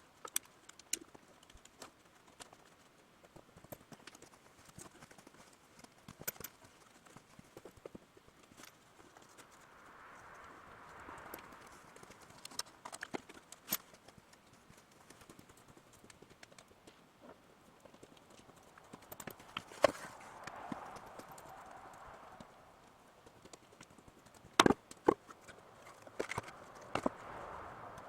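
Irregular light clicks and knocks of hands-on work, with two sharp knocks close together near the end.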